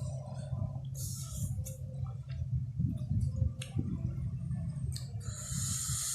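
Close-up eating sounds of spicy tam sua salad: wet chewing with scattered mouth clicks, and two hissing bursts, about a second in and near the end, over a steady low hum.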